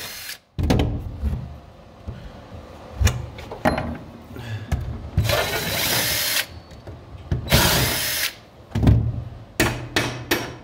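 DeWalt 20-volt cordless driver with a socket spinning rusty bolts out of a pickup's wooden bed floor. It runs in several bursts, the two longest about a second each in the second half, with clicks and knocks of the socket and bolts in between.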